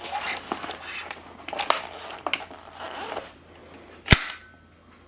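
Hard plastic Dyson V8 vacuum parts being handled, with light rustles and a few small clicks, then one sharp click a little after four seconds in as a part snaps into place.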